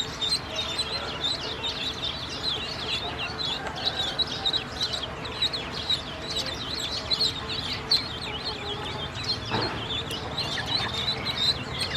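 A group of ducklings peeping continuously: many short, high, downward-sliding peeps overlapping, several a second.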